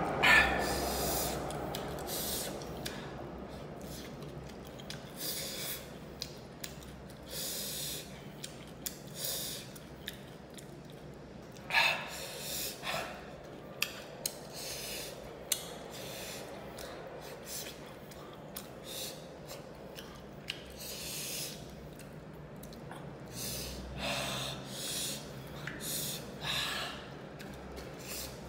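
Close-miked eating sounds from fried fish eaten by hand: chewing and lip smacking with sharp sniffs and gasping breaths from the chilli heat, in short scattered bursts, a few louder ones about halfway through and near the end.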